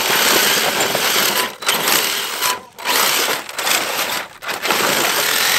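Large electric RC truck lying flipped over, its motor whining under throttle and its spinning tyres spraying dirt and gravel. It goes in about four bursts with short breaks between them.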